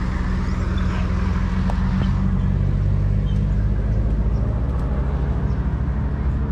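A motor vehicle's engine running steadily, a low hum that holds without change.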